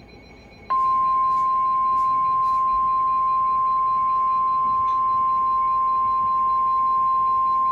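NOAA Weather Radio 1050 Hz warning alarm tone: a single steady high beep that starts under a second in and holds without a break. It signals that a warning message is about to be broadcast, here a severe thunderstorm warning.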